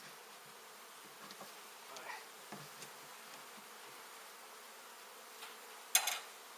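A mass of honey bees buzzing steadily around an exposed hive being removed, with a few light knocks and one sharp, loud clatter about six seconds in.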